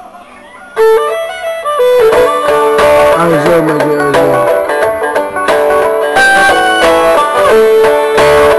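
Music with plucked strings playing through a small speaker being sound-tested, starting abruptly and loud about a second in after a brief quiet moment.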